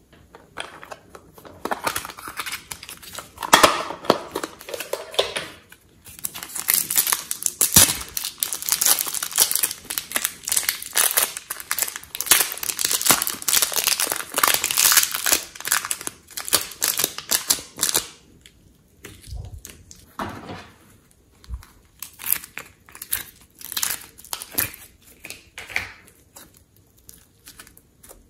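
Clear plastic wrapper crinkling and tearing as a block of soft modelling clay is peeled out of it by hand. The crinkling is dense for about twelve seconds in the middle, then thins to scattered crackles with a few soft thumps.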